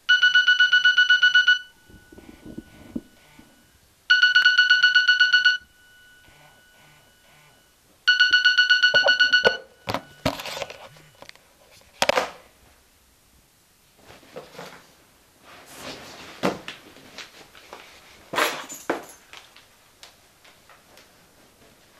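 Nokia mobile phone alarm beeping in three loud bursts of rapid pulses, each about a second and a half long and about four seconds apart; this is the wake-up alarm. After the third burst it stops, and scattered knocks and shuffling noises follow.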